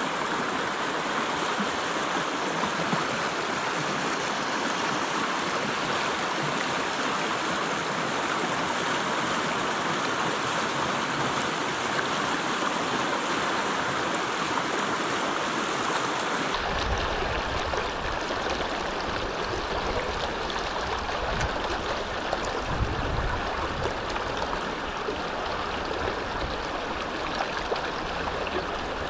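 A shallow salmon river rushing and gurgling over stones in a riffle, a steady noise. About halfway through, the sound changes abruptly to a duller rush with more low rumble.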